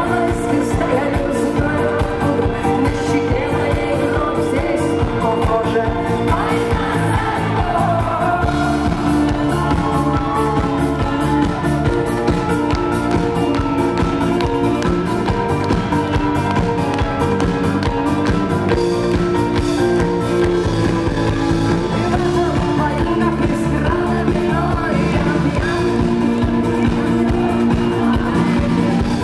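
Live rock band playing a song, with guitar over a steady drum beat and a woman singing.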